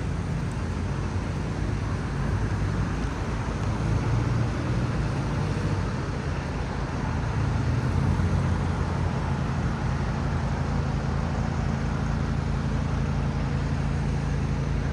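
City street traffic: vehicle engines running with a steady low hum under the road noise.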